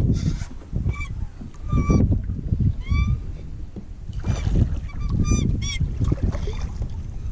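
A series of short honking bird calls, roughly one a second, over wind buffeting the microphone.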